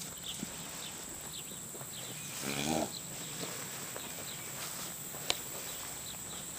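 A horse gives one short, low nicker about two and a half seconds in.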